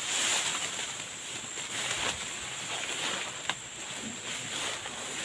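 Rustling of tall grass and brush as someone pushes through it on foot, with one sharp click about three and a half seconds in, over a steady high insect drone.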